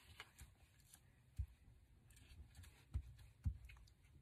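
Faint paper-handling noise as glued paper is pressed down by hand on a craft table, with three soft, dull knocks: one about a second and a half in and two close together near the end.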